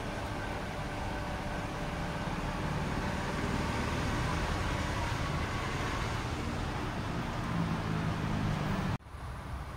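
Steady road-traffic noise, a continuous low rumble. Near the end it cuts off abruptly and carries on quieter.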